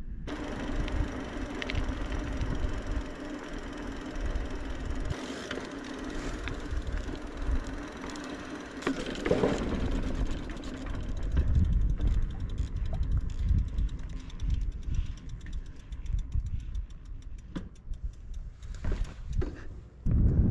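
Mountain bike on the move: wind rumbling on the microphone along with tyre and bike noise. A steady hum runs through the first half, and a fast, even ticking comes in during the second half.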